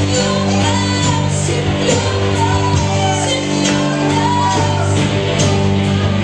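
Live worship music: a band holds sustained chords over a steady beat while a voice sings out above it.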